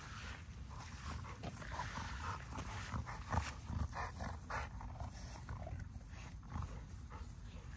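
XL bully puppies and an adult dog play-fighting, making short growling noises in irregular bursts, the loudest a little over three seconds in.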